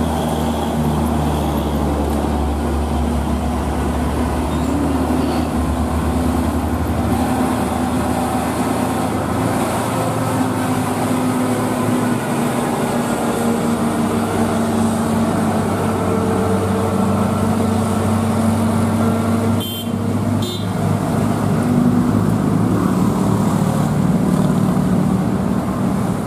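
Heavy diesel trucks labouring up a steep hill, their engines running hard under load, with passing road traffic. A steady engine drone whose pitch shifts as the trucks climb, with two brief dips about twenty seconds in.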